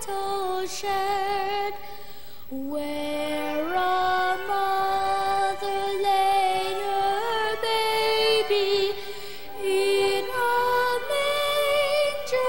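A boy treble singing a slow song solo into a microphone, holding long notes with vibrato, with an orchestra accompanying.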